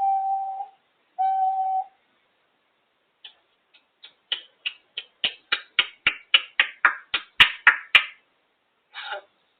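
African grey parrot whistling two steady, level notes, then making a quick run of short clicking, chirping notes, about four a second, that grow louder before stopping, with one more short call near the end.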